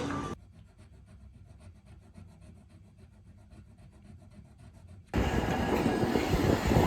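Background music cuts off, leaving a few seconds of faint noise with a light, even ticking. About five seconds in, a loud, low rumbling of a vehicle in motion starts suddenly and keeps building.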